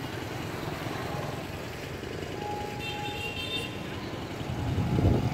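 Road traffic: a steady low rumble of passing vehicles, swelling louder about five seconds in as one passes close.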